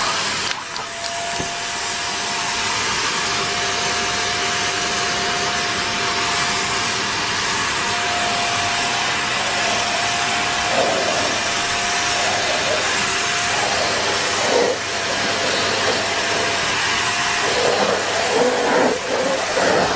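Vacuum cleaner running steadily, with a motor whine over a dense rush of air. The sound changes briefly a few times in the second half.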